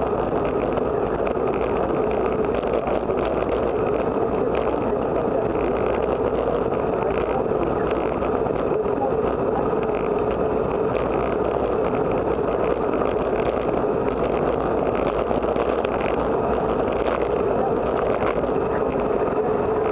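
Steady rush of wind over the microphone and tyre noise from a bicycle rolling at speed over rough, cracked asphalt, heard from a camera mounted low on the bike.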